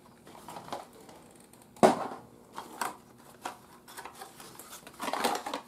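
Handling noise from a cardboard vacuum-tube box being opened and a tube taken out: a sharp click about two seconds in, a few lighter taps after it, and a short rustle of cardboard near the end.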